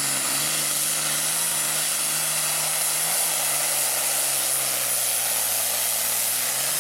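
Diesel pulling tractor under full load, dragging the weight-transfer sled: a loud, steady engine drone whose pitch wavers slightly, with a strong hiss over it.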